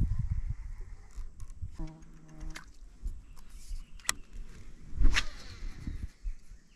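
A baitcasting rod and reel being cast and retrieved, with sharp clicks and swishes about four and five seconds in over a low rumble on the microphone. A brief low hum comes about two seconds in.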